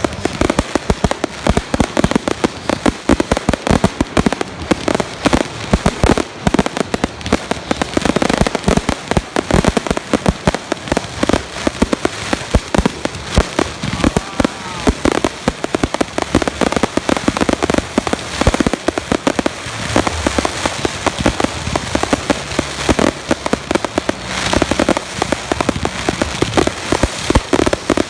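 A fireworks barrage of salute shells: a dense, unbroken run of loud bangs, many to the second, overlapping each other.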